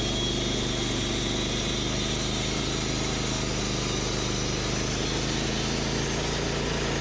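Band sawmill's engine running steadily at a constant pitch.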